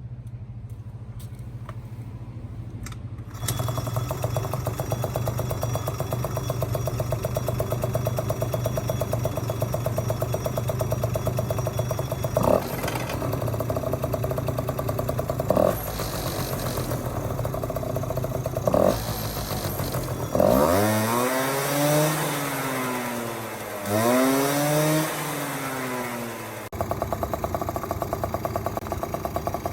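Yamaha Jog Poche (3KJ) scooter's 50cc two-stroke engine idling, blipped three times, then revved up and back down twice before settling to idle again.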